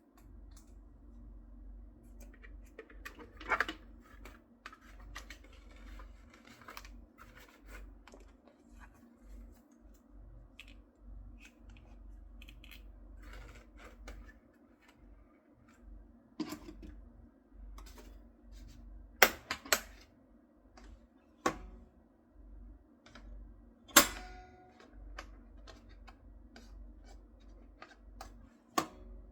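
Scattered clicks and sharp taps of small hard parts being handled, the loudest a handful of separate knocks, over a steady low hum.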